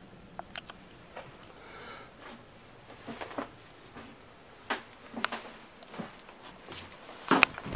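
Scattered knocks and clicks of someone moving about inside a caboose and climbing down from the cupola, with a brief squeak about two seconds in and the loudest knocks near the end.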